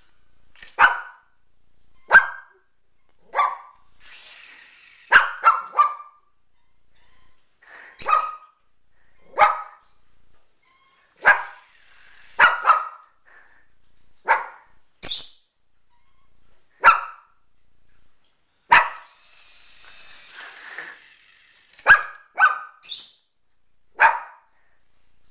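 Small dog barking in short, sharp single barks, roughly one every second or so, some coming in quick pairs.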